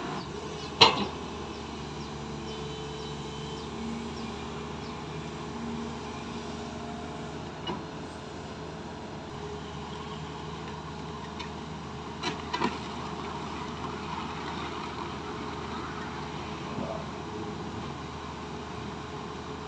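SANY SY205C hydraulic excavator's diesel engine running steadily as the machine crawls off a low-bed trailer, with sharp knocks from the machine about a second in, again near eight seconds and twice around twelve seconds.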